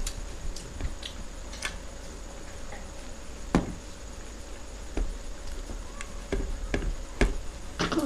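Eating by hand: fingers scooping ghugni muri (puffed rice with yellow pea curry) off plates, with chewing and irregular small clicks and taps, over a faint steady hum.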